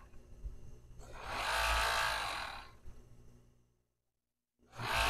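Industrial four-thread overlock (serger) machine running in bursts as it edges a cotton pillowcase seam, its stitching sound swelling up over a steady low motor hum. The sound cuts out completely for under a second near the end, then another run starts.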